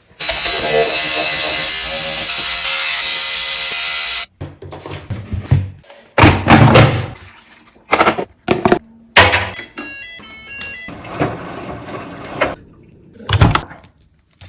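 Washing-machine cleaning sounds: a steady rushing for about four seconds, then a run of knocks and thuds, and a short melody of electronic beeps from the washing machine's control panel about ten seconds in, followed by more thuds.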